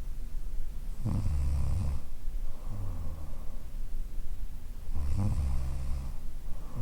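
A woman snoring in her sleep: two loud, low rasping snores about four seconds apart, each lasting about a second, with softer breathing between them.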